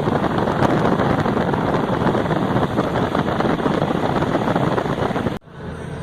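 Loud, steady rushing noise that cuts off abruptly about five and a half seconds in, giving way to a quieter hum.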